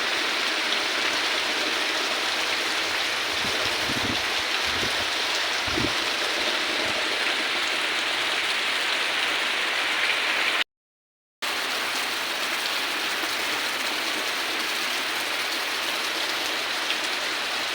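Soft, steady rain falling, a dense even hiss of drops, with a few low thumps about four to six seconds in. The sound cuts out completely for under a second about eleven seconds in, then the rain resumes.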